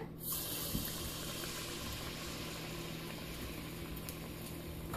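Rava (semolina) vada deep frying in hot oil in a kadai: a steady sizzle of bubbling oil around the dough ball, starting just after it is dropped in, with faint crackles.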